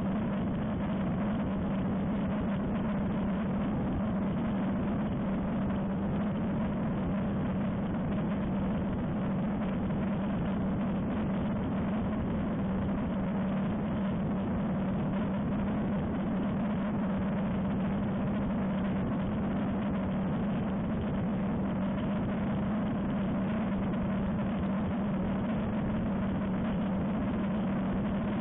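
Ultralight aircraft engine and propeller running steadily in cruise flight, a constant low drone with airflow rushing over the wing-mounted microphone.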